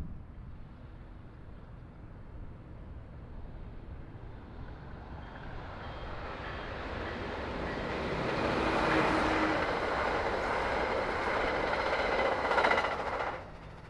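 A train approaching and running past, growing steadily louder over several seconds and then cutting off suddenly near the end.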